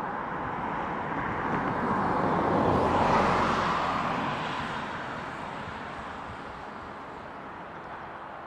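A road vehicle passing by: engine and tyre noise swells to a peak about three seconds in, then fades slowly.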